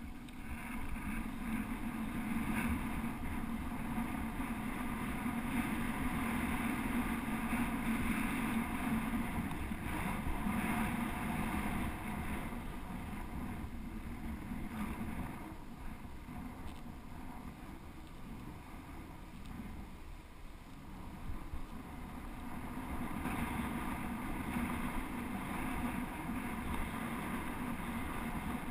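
Bicycle rolling downhill on a paved path: a steady rush of wind on the microphone over tyre noise, easing off about halfway through and building again near the end.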